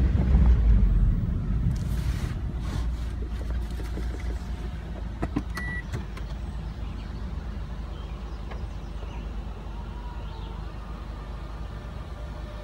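Car rumbling to a stop, then the motorised convertible top running as the roof closes: a low steady hum with scattered clicks, a brief high tone about six seconds in, and a faint wavering whine in the second half.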